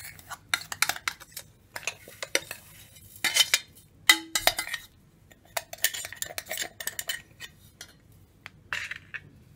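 Steel spoon scraping and clinking inside a stainless steel mixer-grinder jar as coarsely ground moong dal is knocked out onto a plate. Irregular clusters of clinks and scrapes, with one brief ringing clink about four seconds in.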